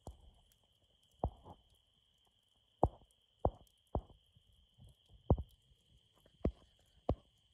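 Crickets trilling in one steady high note, broken by about seven sharp pops or knocks at irregular intervals.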